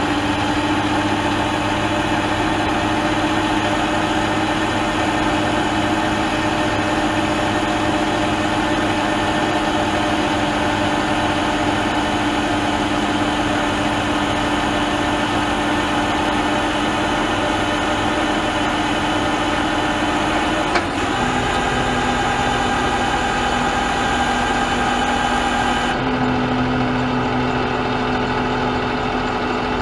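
An engine running steadily at a constant speed. A little over two-thirds through there is a click and the engine note steps slightly lower, then carries on steady.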